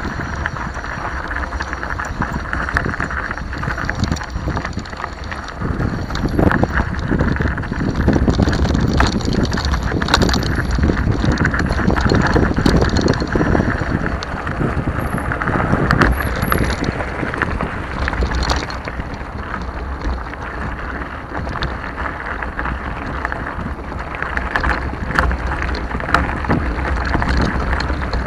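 Mountain bikes rolling over a gravel dirt track: tyres crunching and parts rattling with many small clicks, over steady wind buffeting the microphone.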